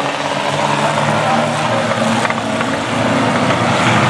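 A pack of Reliant Robin three-wheeler racing cars running together around an oval track, their engines making a steady, loud, overlapping engine note.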